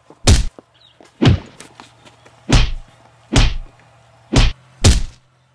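Heavy thuds of baseball bat blows in a staged beating, six hits in a row, the last two close together.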